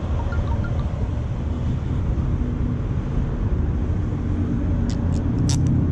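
Motor scooter running at low speed, a steady low rumble, with a few sharp clicks about five seconds in.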